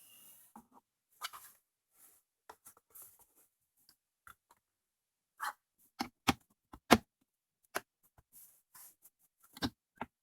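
Car interior lower trim piece being fitted, with light handling rustles, then a series of sharp snaps and knocks as its clips are pressed home, the loudest about seven seconds in.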